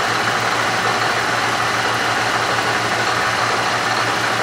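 1947 J-head Bridgeport milling machine running with an end mill cutting into 3-inch metal round stock: a steady hum under constant cutting noise. The end mill is one the machinist calls the dullest he could find.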